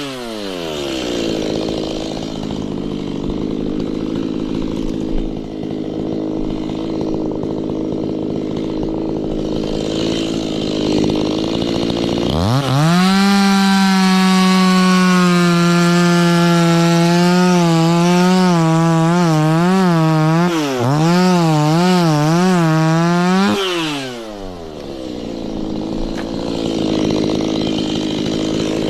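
Two-stroke chainsaw dropping from high revs to idle at the start and idling for about twelve seconds. It then revs up to full throttle and holds steady. About five seconds later its revs waver up and down repeatedly, and it drops back to idle about a second before the end.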